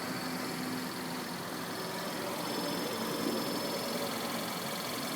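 Skoda Yeti engine idling steadily, with a faint steady high-pitched whine. The owner takes the noise for a faulty water pump, one that was already replaced once.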